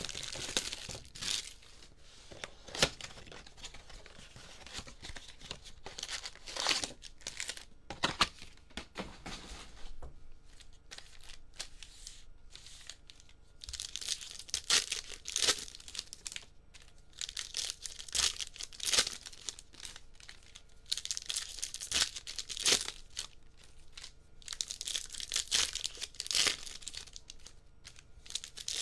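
Cardboard blaster box of baseball cards being opened and handled, with sharp clicks and rustles, then the cards' foil wrapper packs torn open and crinkled in clusters every few seconds, with cards shuffled between rips.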